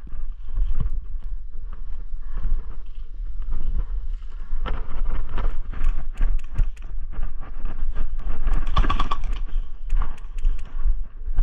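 Wind buffeting the microphone with a steady low rumble, under irregular footsteps and knocks of gear. A quick run of sharp clicks comes about nine seconds in, and the sound cuts off suddenly at the end.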